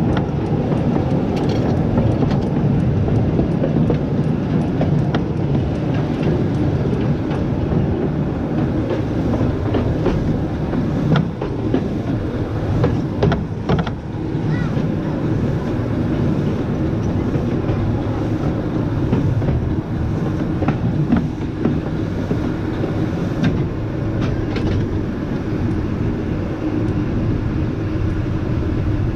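Small 0-4-2 steam tank locomotive running along the track, heard close up from its side: a steady running noise of the engine and wheels, with a few sharp clicks from the wheels on the rails along the way.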